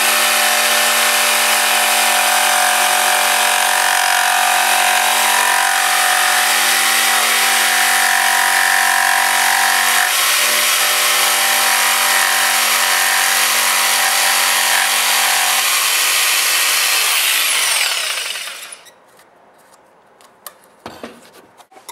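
Electric jigsaw running steadily as its blade cuts a curve through a wooden board. Its motor winds down and stops about eighteen seconds in, and a few short knocks follow near the end.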